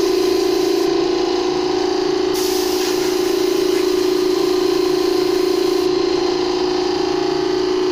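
Shop air compressor running with a steady drone while a blow gun blasts compressed air into an open computer case to clear its dust. The hiss of the air stops about a second in, comes back about 2.5 seconds in, and stops again near the six-second mark.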